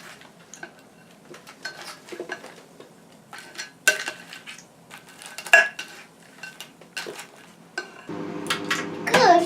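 Dishes and cutlery clinking and knocking: scattered light clinks, several with a short metallic ring. A steady hum comes in about eight seconds in.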